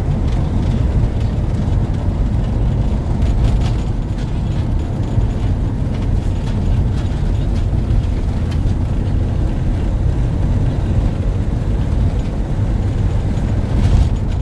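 Steady low rumble of a car's engine and tyres on a paved road, heard from inside the cabin while driving, with a brief louder bump near the end.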